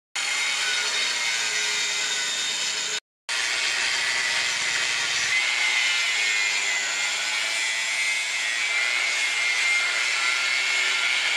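Electric angle grinder with a thin cutting disc working the edge of a steel knife blade: a steady high whine with harsh grinding noise. The sound breaks off for a moment about three seconds in, then runs on.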